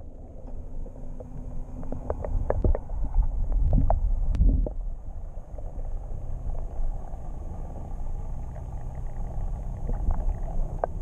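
Muffled low rumble of water heard from a camera held underwater, with a cluster of sharp knocks and clicks about two to four and a half seconds in and a few more near the end.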